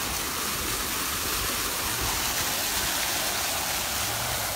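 Fountain water jets splashing steadily into the basin.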